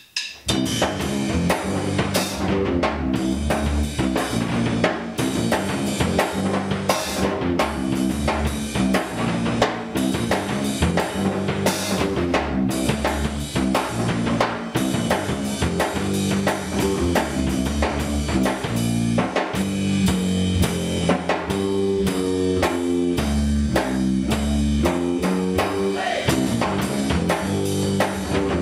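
Heavy rock music: a guitar riff played over a full drum kit with a steady beat.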